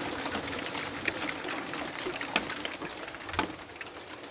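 Hailstones striking hard outdoor surfaces: a dense, irregular scatter of sharp ticks over a steady hiss of falling hail and rain, with a few louder knocks.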